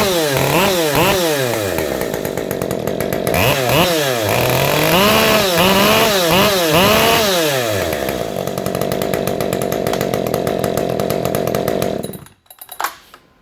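Ported, decked Husqvarna 550 XP two-stroke chainsaw with a custom exhaust, its throttle blipped in quick revs that rise and fall several times, idling between bursts, then revved again and left idling until it is shut off about 12 seconds in.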